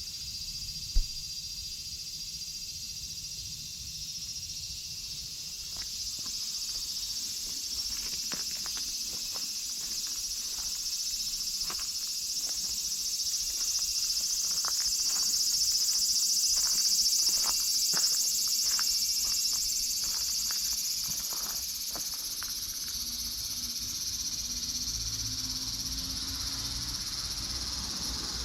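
A steady, high-pitched chorus of insects, swelling a little in the middle. There is a sharp knock about a second in, and a run of light clicks from about eight to twenty-two seconds in.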